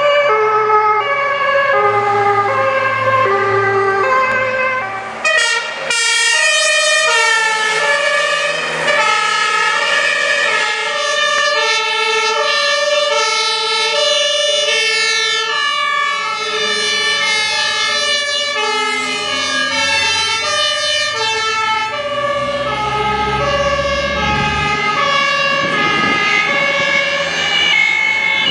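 German two-tone fire service sirens (Martinshorn) alternating between two notes, one siren at first, then after a break about five seconds in several sirens overlapping out of step as fire trucks pass in convoy. A heavy truck's engine rumbles louder about three-quarters of the way through.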